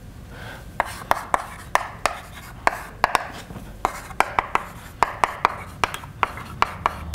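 Chalk writing on a blackboard: sharp, irregular taps several times a second with short scratches between them, starting about a second in.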